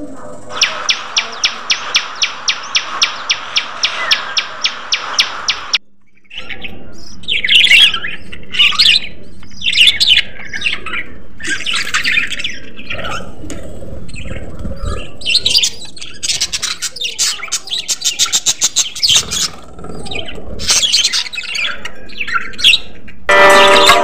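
A flock of budgerigars chirping and chattering. For the first several seconds there is a fast, even run of chirps at about six a second. After a short break come irregular high chirps and warbling trills.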